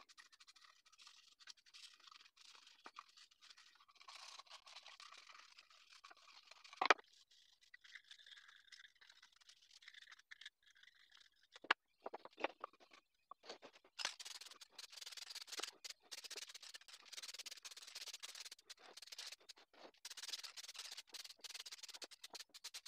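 Faint scratchy rubbing as a small wooden piece is wiped with a cloth, with a sharp knock twice. From about halfway through, an aerosol spray can hisses in short bursts as finish is sprayed onto the piece.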